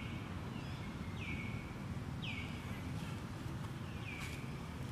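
A high call that slides down in pitch and then holds briefly, repeated four times about a second apart, over a steady low outdoor rumble.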